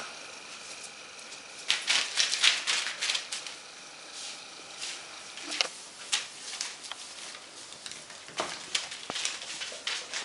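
Groenendael puppies scampering and scuffling on newspaper, their paws crinkling and scratching the paper in quick, irregular clicks and rustles, busiest about two seconds in.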